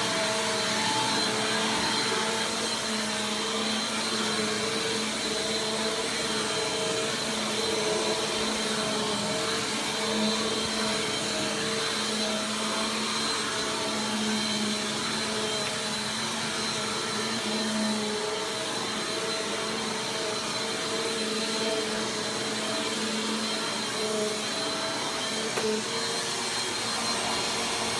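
Bissell PowerForce Compact Turbo upright vacuum cleaner running steadily, a constant motor whine over the rush of air.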